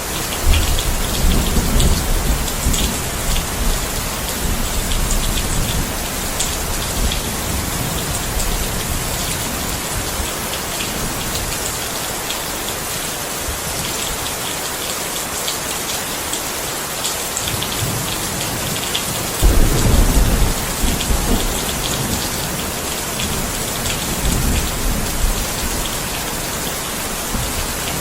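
Steady rain falling as an even hiss, with low rumbles of thunder swelling just after it begins and again about twenty seconds in.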